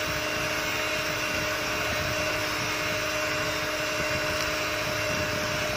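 Electric hand mixer running at a steady speed, a constant motor hum and whine, its twin beaters whipping a cream-and-sugar chocolate mixture in a glass bowl to double its volume.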